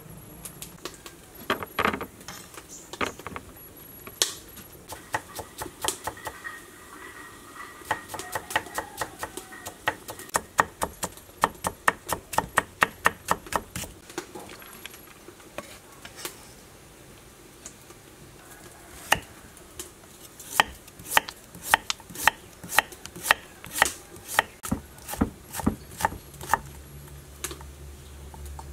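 Kitchen knife chopping on a wooden cutting board, cutting carrot: quick, even strokes about three a second, in two runs with a short pause between them.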